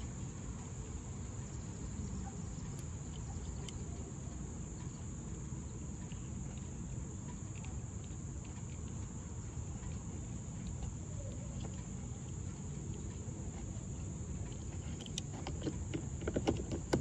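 Crickets or other insects chirring in a steady high continuous trill over a low steady rumble, with a few faint clicks near the end.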